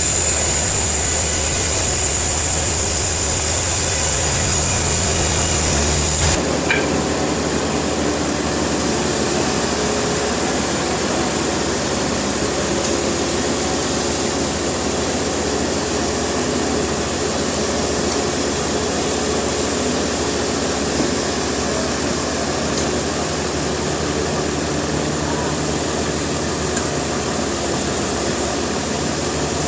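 Sawmill machinery running with a steady engine drone. A high-pitched whine and a low hum stop about six seconds in, and the machinery keeps running after that.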